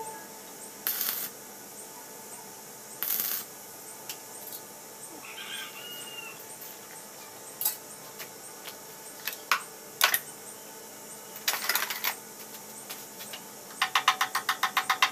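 Scattered metallic clinks and taps of hand tools and parts against the boat's steel frame, then a quick run of rapid, even clicks near the end.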